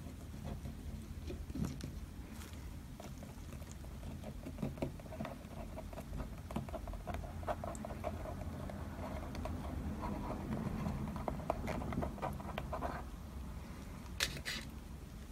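Brush dabbing ink onto paper: many quick, light taps and scratches, busiest in the middle, with a sharper click near the end.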